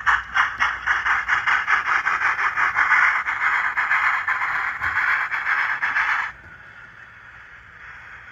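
Sound decoder of an HO scale NSWGR 38 class model steam locomotive playing rapid, even steam exhaust chuffs, about five or six a second, through the model's small onboard speaker. The chuffing cuts off suddenly about six seconds in, leaving a faint steady hiss.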